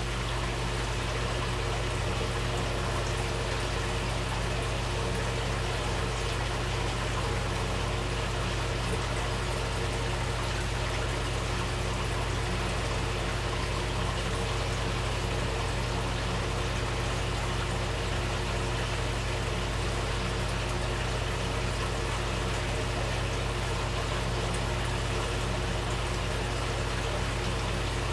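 Steady trickle of water running into a small koi show tub, with a low steady hum underneath.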